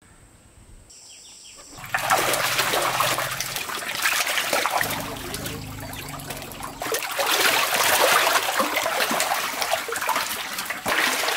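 Water splashing and sloshing as catfish thrash in a shallow concrete tank while they are scooped up with a plastic basket. The splashing starts suddenly about two seconds in and goes on unevenly.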